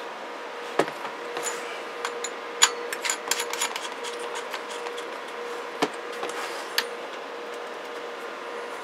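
Scattered clicks and knocks from an open CB radio chassis and its cables being handled on a workbench. They are clustered over the first few seconds, with single sharper knocks later. A steady hiss with a faint steady hum lies underneath.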